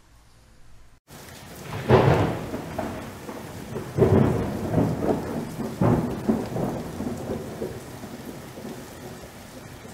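Steady rain with rumbles of thunder, the loudest about two, four and six seconds in. It starts abruptly about a second in.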